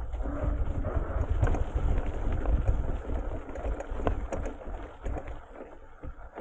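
An electric bike rolling over a mown hay field: tyres crackling over dry stubble and the bike clicking and rattling, with wind rumbling on the handlebar-mounted camera's microphone. It gets quieter near the end.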